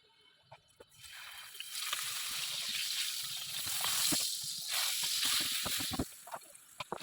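Food sizzling in a hot pan: a hissing, crackling sound that starts suddenly about a second in and dies down near the end, with scattered clicks.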